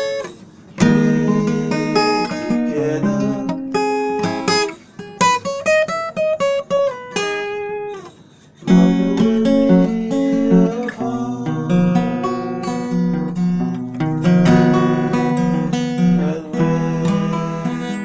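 Acoustic guitar playing a tune of picked and strummed chords, pausing briefly just after the start and again about eight seconds in.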